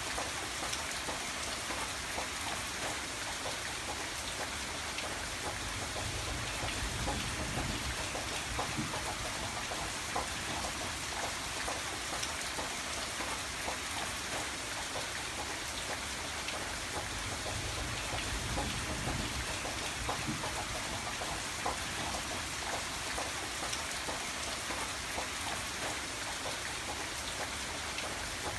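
Steady rain falling, with many close drops pattering on a surface.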